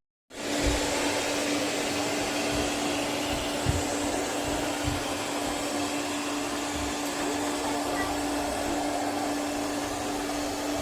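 A MAMNV robot vacuum running: a steady whirr of its suction fan with a constant hum, and a few faint low knocks along the way.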